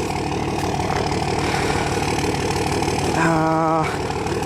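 Diesel freight locomotive rumbling steadily as the train approaches, with a short single-note horn blast about three seconds in.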